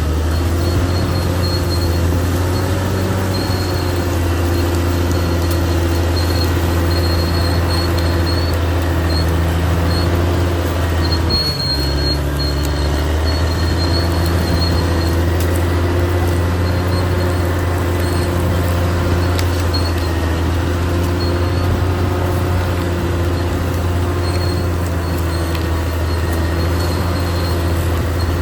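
Caterpillar D6R XL crawler bulldozer's diesel engine running steadily under load, with a brief dip about halfway through. A high-pitched squeal comes and goes over the engine.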